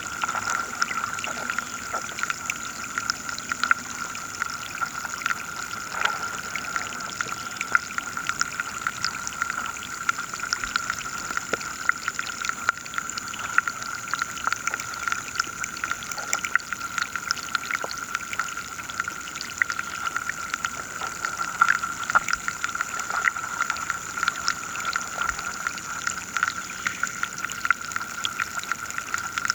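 Underwater sound of a river shallows: dense, irregular clicking and crackling over two steady high-pitched tones.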